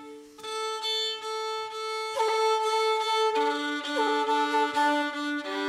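Fiddle bowing long, steady double stops on open strings a fifth apart, the strokes breaking and restarting every second or so, with a short slide in pitch about four seconds in: the fiddle being tuned before a tune.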